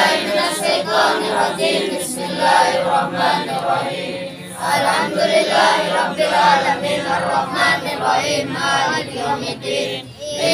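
A group of men and boys chanting Islamic prayer recitation together in unison, many voices overlapping without a break.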